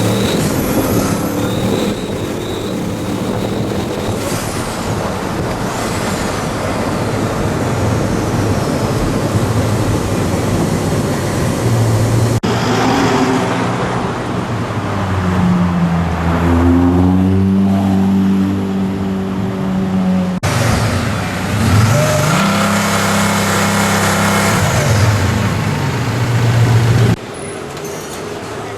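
Supercar engines revving and accelerating in a string of short clips. The engine note climbs and falls in pitch several times, and the first part is mostly traffic noise.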